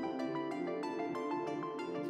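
Instrumental background music with a quick, even run of notes.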